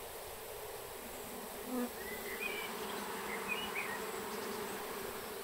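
A large honeybee colony buzzing in a steady, even hum. The bees are stirred up as their comb is cut out and scooped into a box.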